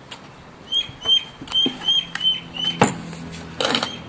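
A small bird chirping over and over, short slightly falling chirps about three a second, with a sharp click a little after halfway and a brief rustle or scrape soon after.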